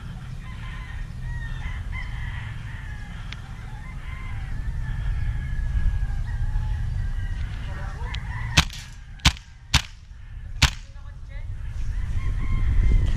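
Roosters crowing in the background over a low rumble. About two-thirds of the way in come four sharp cracks, single shots from a gas blowback airsoft submachine gun, less than a second apart.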